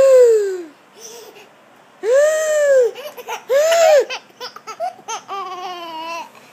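An 8½-month-old baby laughing: three loud squealing laughs that rise and fall in pitch in the first four seconds, then a run of quicker, choppier laughter.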